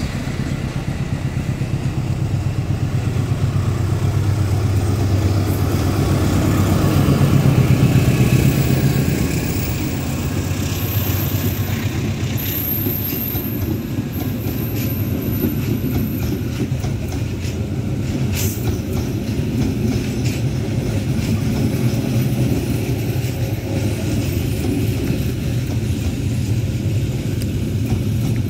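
Diesel-hauled passenger train passing close by: the locomotive's engine is loudest about eight seconds in, then a long rake of coaches rolls past with a steady rhythmic clatter of wheels over the rails.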